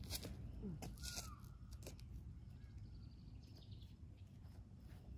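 Faint outdoor background: a steady low rumble of wind on the microphone, with a few soft clicks in the first two seconds.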